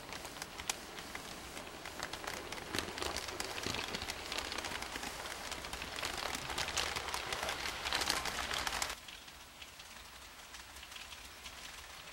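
Model train of M6 double-deck coaches rolling past, its wheels clattering on the track as a dense run of fine clicks that builds in loudness. About nine seconds in it drops suddenly to a fainter clicking.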